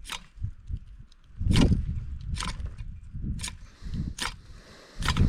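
Ferro rod (fire steel) being struck over and over, about once a second, throwing sparks to light a camping gas stove when there is no lighter.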